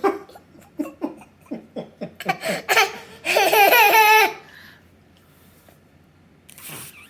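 A young child laughing: a run of short laughing bursts, then one long, wavering, high laugh about three seconds in.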